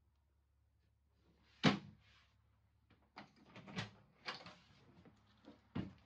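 A door shutting with a sharp thump about a second and a half in, then a run of lighter knocks and clatters and another sharp knock near the end.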